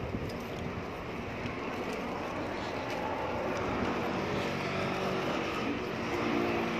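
Street noise with a steady engine hum that grows louder over the second half, like a motor vehicle drawing closer.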